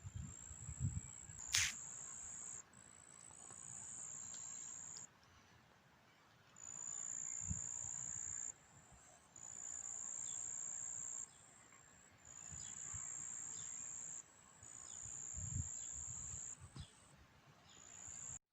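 Insects trilling, a steady high-pitched buzz in runs of one to two and a half seconds with short breaks between. A sharp click about one and a half seconds in.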